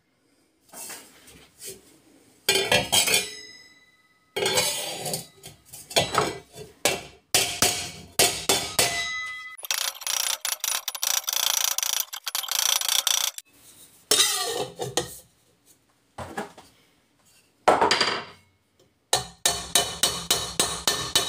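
Hammer strikes on the welded sheet-metal cones of a two-stroke expansion chamber, the thin metal ringing after the blows, coming in clusters with a run of quick strikes near the end. The hammering is blending the angular cone seams into a rounder pipe. About ten seconds in there are a few seconds of steady rasping noise.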